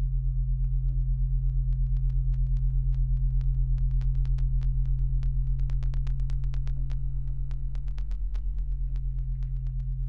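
Steady low electrical hum from high-voltage power lines, with many sharp crackles that come thickest through the middle seconds.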